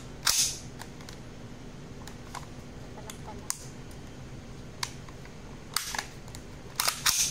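Sharp clacks of a Glock 18 in a Recover carbine conversion kit being cocked, the charging handle racking the slide. The loudest come about a third of a second in and again near the end, with lighter handling clicks between.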